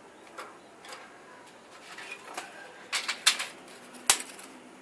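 Small sticks of wood knocking and clattering against the rocket stove as they are laid in: a few scattered knocks in the second half, the sharpest near the end.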